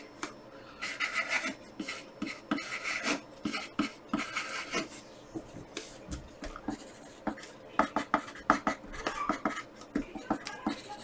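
Wooden pencil scratching on graph paper, in short bursts of writing and drawing strokes with pauses between them.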